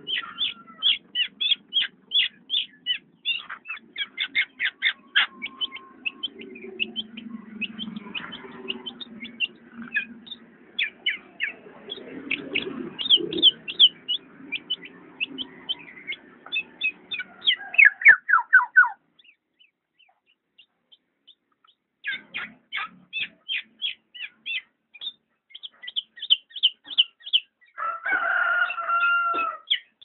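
Black-naped oriole calling: rapid runs of short chattering notes, several a second, broken by a pause of about three seconds just past the middle, then a longer pitched call near the end.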